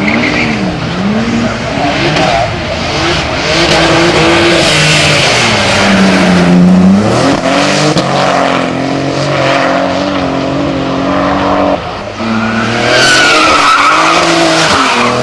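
Lotus Omega race car's engine revving hard, its pitch rising and falling with throttle and gear changes, while the tyres squeal and skid as the car drifts through bends. The sound breaks off abruptly about seven and about twelve seconds in as one pass gives way to the next.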